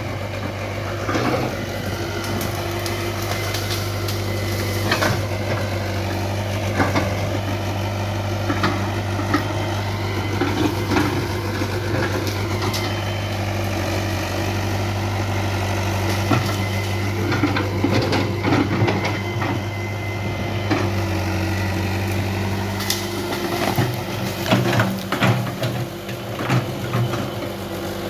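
Hitachi UH035 hydraulic excavator's diesel engine running steadily, with scattered knocks and clanks from the machine at work. The engine note wavers near the end.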